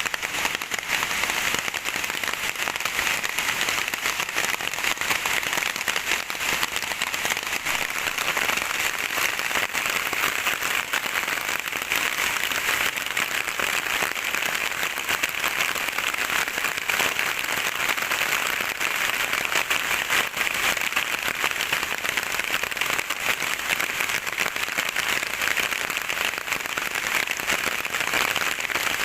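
Steady heavy rain, a dense patter of drops with no let-up.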